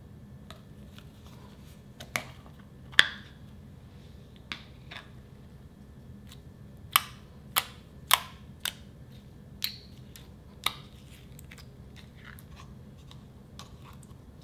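A clear plastic deli tub being handled: a series of sharp plastic clicks and taps, the loudest about 3 s in and a cluster of them between about 7 and 11 s, as the lid comes off and the tub is gripped and poked. A steady low hum runs underneath.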